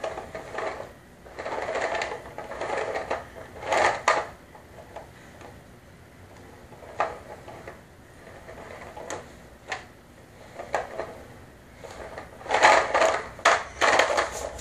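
Plastic toy car being handled and pushed about by a toddler: irregular plastic clicks and rattles, with a louder burst of clattering a couple of seconds before the end.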